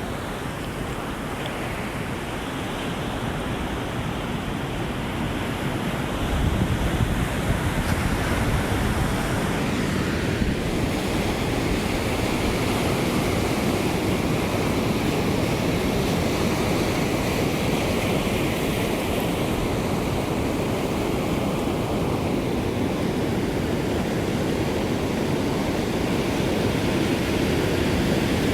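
Ocean surf breaking and washing on the shore in a continuous rush, building up over the first several seconds with a low rumble of a breaking wave about six seconds in, then steady.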